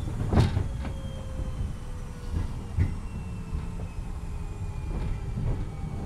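Cabin running sound of a Toyama Chiho Railway 10020-series electric train, ex-Eidan 3000-series running gear, slowing down: a whine falls steadily in pitch over the rolling rumble. The wheels knock over rail joints about half a second in, near three seconds, and twice near five seconds.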